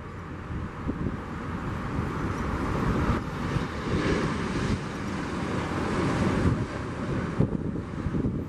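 Jet engines of an Embraer E-Jet airliner on final approach and flaring over the runway, a steady rumble heavily buffeted by wind on the microphone, with two brief dips where the shots change.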